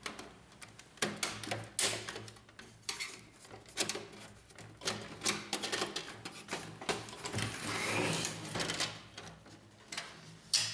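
Irregular clicks and knocks of a laser printer's plastic casing being handled and pried apart, as the hooks holding its front panel are released, with a stretch of plastic scraping about two-thirds of the way through.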